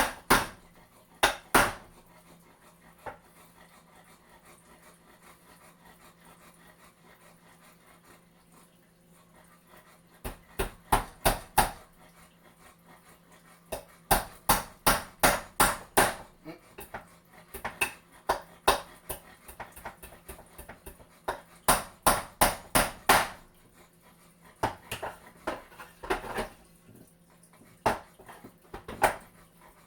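Hammer driving nails into a wooden frame by hand, in runs of quick strikes of up to about four a second. After the first few strikes there is a quiet stretch of about eight seconds.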